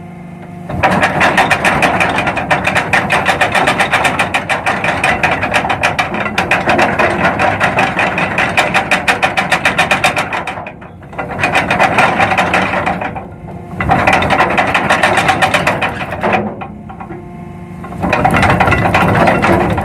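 Ship's anchor chain running out through the windlass, a loud rapid rattle of links. The rattle stops and starts three times with short gaps.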